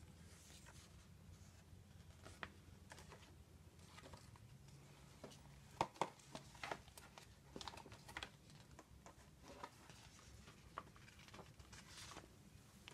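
Hands handling a blue plastic Blu-ray keep case: scattered light clicks and taps of plastic, with the loudest pair of clicks about six seconds in.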